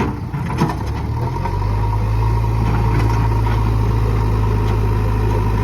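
JCB excavator's diesel engine running steadily, getting louder and heavier about one and a half seconds in as it takes load, with a sharp knock about half a second in.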